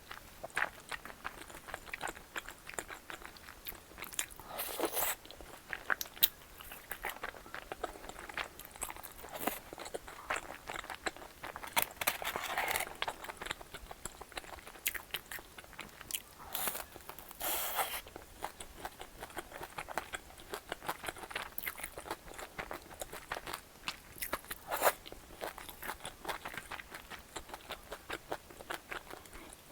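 A person eating tteokbokki close to the microphone: chewing and biting, with many small, quick clicking mouth sounds and a few louder bites scattered through.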